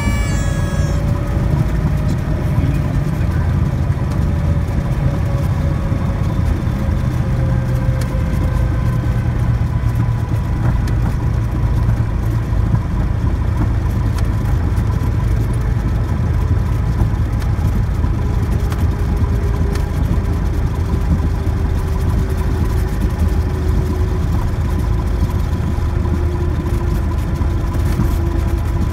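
Cessna 172S's four-cylinder Lycoming engine and propeller droning steadily inside the cockpit as the plane rolls along the runway after landing. A faint whine slowly falls in pitch.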